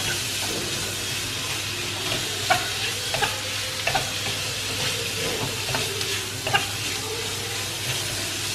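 Boneless chicken pieces with diced carrot and onion sizzling in hot oil in a wok-style pan, stirred with a wooden spatula that knocks and scrapes against the pan about once a second.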